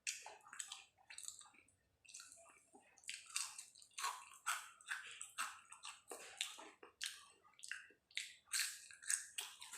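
Close-miked chewing and biting of fried banana with cheese, a steady run of chews about two a second.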